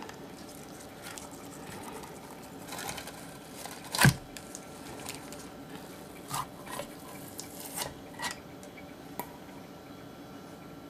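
Stainless steel mixing bowls handled against each other: one sharp metallic knock about four seconds in, then scattered lighter taps and rustles as strips of tape are pressed onto the bowl rims.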